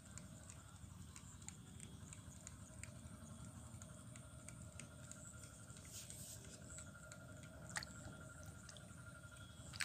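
Faint scattered clicks and ticks over a low wind rumble, with a sharper click a little before the end and another right at the end.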